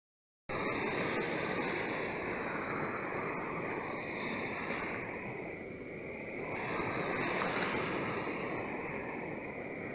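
Sea waves breaking and washing in, a steady rush of surf that starts abruptly about half a second in, eases off around the middle, then swells again.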